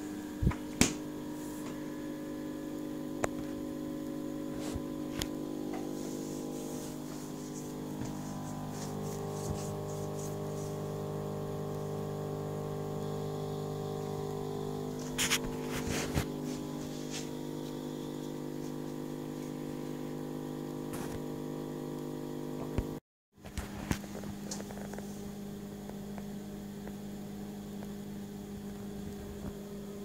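Frigidaire side-by-side refrigerator running with a steady hum made of several tones, with a few scattered clicks and knocks. The hum shifts about a third of the way in and cuts out briefly about three-quarters of the way through before resuming.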